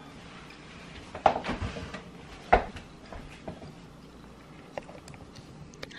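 Cooked lobster shell being cut and cracked with a blade: two sharp cracks, about a second in and again a second later, then a few faint clicks.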